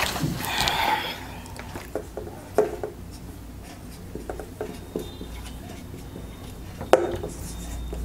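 Marker writing on a whiteboard: a run of short scratchy strokes and light taps, with one sharper tap about seven seconds in.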